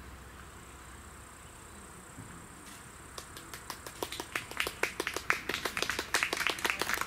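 Scattered hand-clapping from a small number of spectators. It starts about three seconds in and grows denser and louder.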